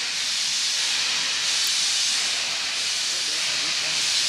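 LMS Stanier 8F steam locomotive venting steam in a loud, steady hiss that cuts off suddenly at the very end.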